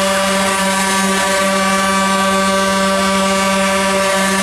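Pirate-ship fairground ride's horn sounding one long, loud, steady blast at a single pitch, like a ship's horn.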